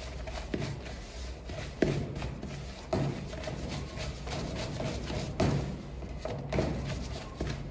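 Softened butter and sugar being creamed by hand with a spoon in a plastic mixing bowl. The bowl knocks dully on a stainless steel worktop about six times, roughly a second apart, over the soft scraping of the spoon through the mixture and a steady low hum.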